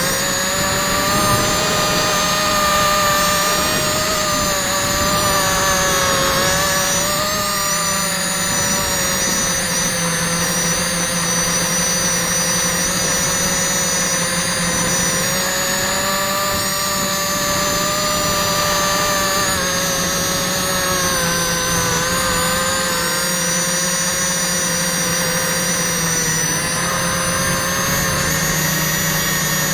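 Quadcopter's brushless motors and propellers running in flight: a steady whine whose pitch drifts up and down with the throttle.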